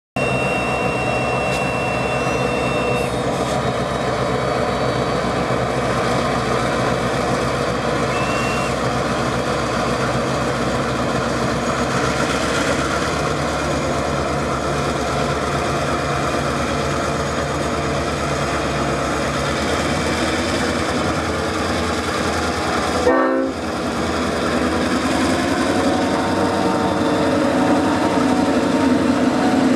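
S class diesel-electric locomotives' engines running under load as a grain train approaches and passes, a steady mechanical drone with rail noise. The sound drops out briefly about 23 seconds in, then grows somewhat louder as the locomotives come alongside.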